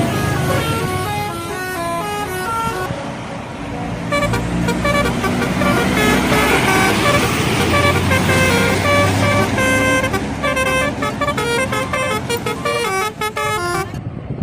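Indonesian 'telolet' multi-tone bus horn playing a rapid tune of short stepped notes over the bus's engine noise, growing louder about four seconds in.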